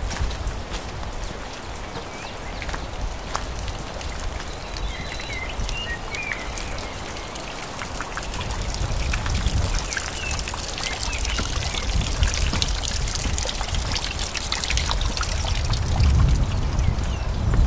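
Water trickling and splashing along a levada irrigation channel, growing louder about halfway through. Small birds chirp in the first half, over low thumps of footsteps on the path.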